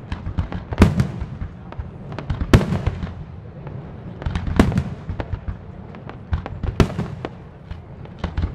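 Fireworks display: a continuous run of firework bangs and crackles, with a louder boom about every two seconds among many smaller pops.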